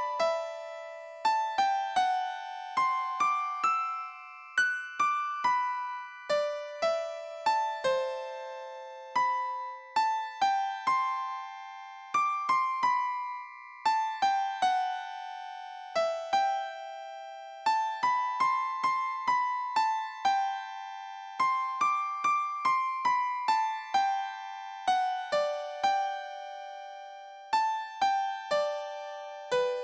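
Background music: a simple melody on an electric piano-like keyboard, played one note at a time, two or three notes a second, each struck and dying away.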